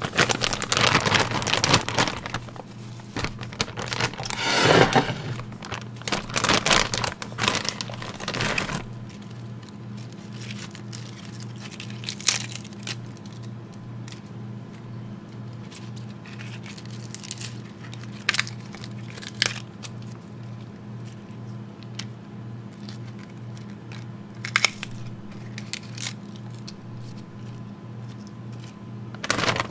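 Plastic bag crinkling and rustling as hands work it, dense for about the first nine seconds, then giving way to a few scattered sharp clicks and taps. A steady low hum runs underneath.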